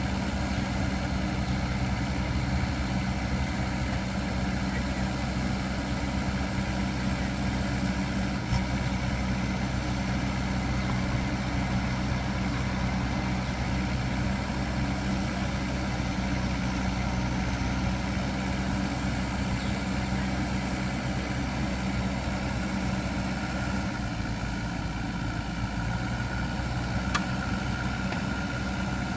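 Excavator's diesel engine running steadily throughout, with a higher steady tone joining it over the last few seconds.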